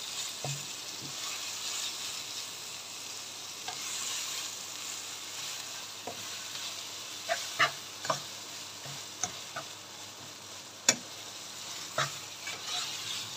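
Minced meat frying in a pan with a steady sizzle as its released water cooks off, with a spoon stirring and knocking against the pan in sharp clicks from about halfway through.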